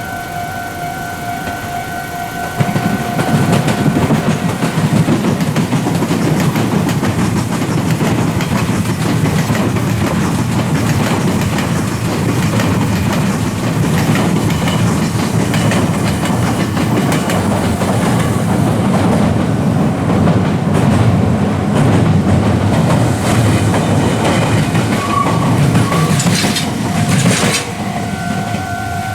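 A Meitetsu electric train passing over a level crossing, its wheels clattering rapidly over the rails and drowning out the crossing's pulsing alarm bell. The bell is heard ringing at the start and comes back near the end as the train clears.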